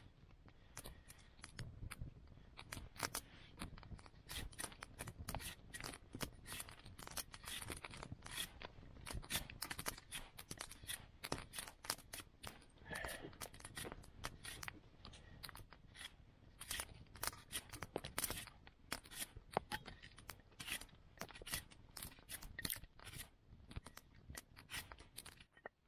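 Large Yakut knife carving a round of wood: a steady run of quick, irregular slicing and shaving strokes, several a second, that stops just before the end.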